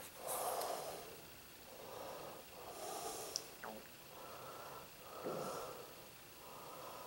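A man breathing steadily through his nose close to the microphone, about six soft breaths, with one small click near the middle.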